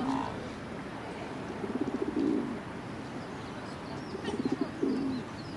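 Pigeon cooing twice, a low rolling coo about a second and a half in and another near the end, with faint small-bird chirps.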